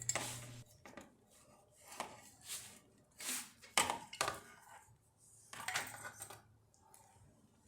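Scattered light metallic clinks and knocks from parts and tools being handled while a motorcycle radiator is worked free and set down, with near silence between them.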